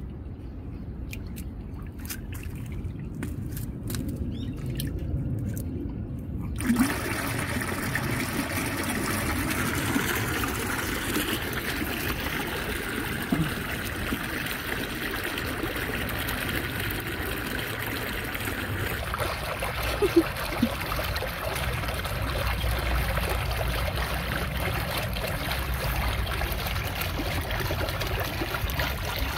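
Water welling up from a pond's filtered-water outlet and running over wet stone steps, a steady splashing trickle. For the first six seconds or so it is quieter and muffled with a few small clicks, then the water noise comes in suddenly at full strength.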